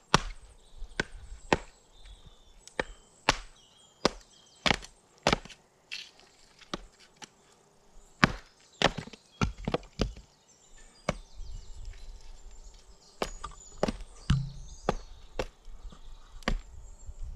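A wooden baton hammering the spine of a Schrade Frontier SCHF37 survival knife to split a piece of wood: repeated sharp knocks of wood on steel and wood, about one or two a second, with a short pause about twelve seconds in.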